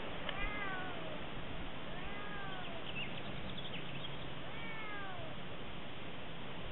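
Long-haired black domestic cat meowing three times, each drawn-out call rising briefly and then sliding down in pitch.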